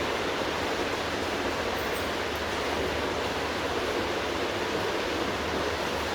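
Steady rushing noise that holds at one level throughout, with no clicks or changes.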